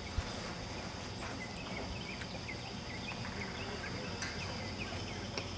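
Outdoor ambience: a steady high insect drone with scattered short bird chirps over a low rumble.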